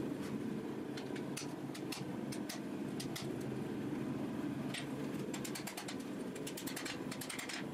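Hammer blows on a glowing-hot steel blade, forge-welded from ball bearings, on an anvil: sharp metallic strikes, a few spaced ones and then a quick run of lighter blows near the end, over a steady low hum.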